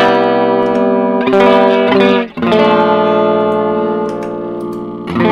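Electric guitar strumming chords, first dry, then through a Boss CE-2 analog chorus pedal switched on about two seconds in. The last chord is left to ring out and fade through the chorus.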